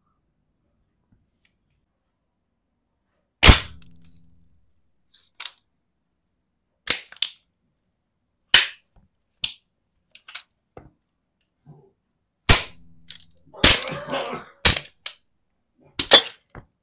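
Hard plastic toys cracking and snapping as a heavy boot sole crushes them: about a dozen sharp cracks, starting about three and a half seconds in, with a short run of crunching near the end.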